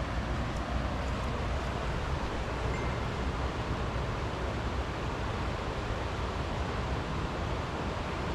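Steady rushing noise of the swollen river in flood, mixed with wind buffeting the microphone.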